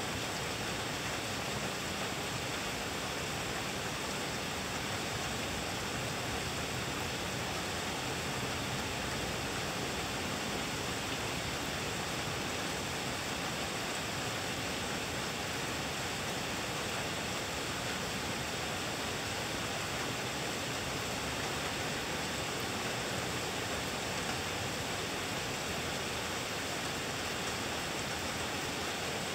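Thunderstorm rain falling steadily, an even hiss with no thunder claps.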